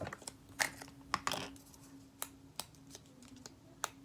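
Scattered light clicks and taps of plastic slime containers being handled, over a faint steady hum.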